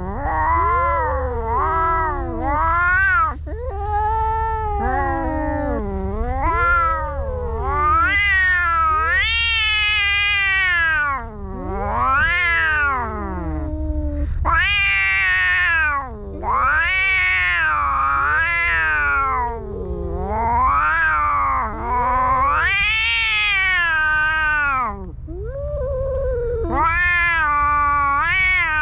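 Two cats yowling at each other in a face-to-face standoff: long, wavering caterwauls that rise and fall in pitch, one after another with only brief breaks. This is threat yowling between rival cats squaring up to fight.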